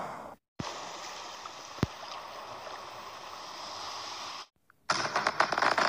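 Steady rushing and flowing water, cut off suddenly twice by brief silences, with a single sharp click about two seconds in. Near the end, dense fireworks crackling starts.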